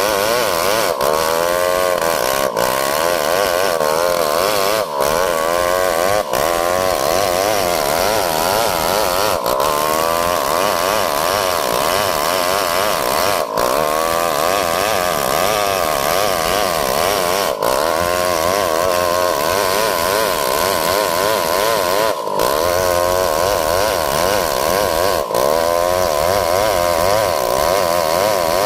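STIHL 070 two-stroke chainsaw running under load while ripping lengthwise through a coconut log, its engine note wavering and dipping briefly several times.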